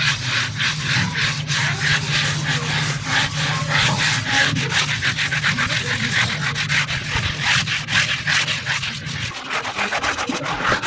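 Hand scrubbers rubbing back and forth against a rough cement wall, a fast rasping scrub of several strokes a second from two people working at once. A steady low hum runs underneath and stops near the end.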